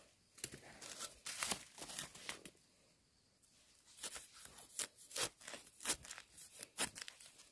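Dry bamboo leaf litter and twigs crackling and snapping in irregular bursts as they are handled and disturbed, with a pause of about a second in the middle.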